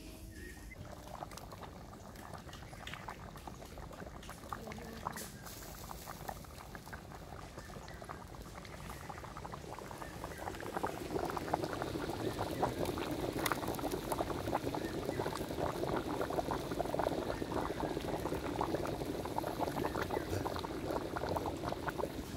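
Egg and potato curry boiling hard in a large iron kadai: a dense bubbling and popping that grows louder about halfway through.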